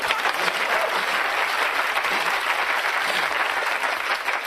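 Studio audience applauding, many hands clapping steadily, fading slightly near the end.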